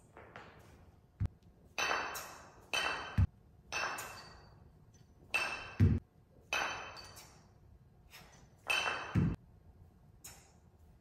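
Two kettlebells clinking together with a ringing metallic tone as they are swung, about six times at a steady pace, along with four dull low thuds.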